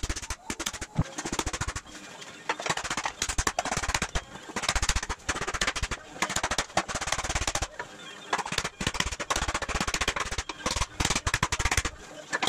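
Rapid runs of blows from a teardrop mallet on thin aluminium sheet, beaten over a sandbag and into a hollow in a wooden stump to form a compound curve. The blows come about five a second, in runs with short pauses between them.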